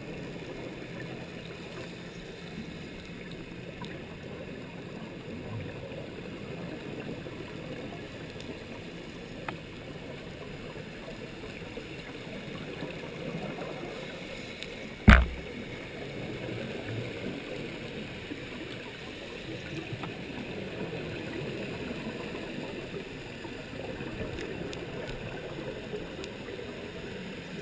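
Underwater ambience picked up through a GoPro's waterproof housing: a steady, muffled wash of water noise. A single sharp knock sounds about halfway through.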